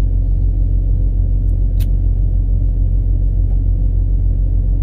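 Steady low rumble of a semi truck idling, heard from inside its cab, with one faint click about two seconds in.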